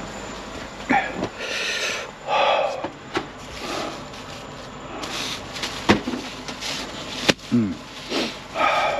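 Rustling and handling noises with a few sharp clicks and knocks as items and a cloth are moved about and stuffed into an overhead storage pocket in a truck cab.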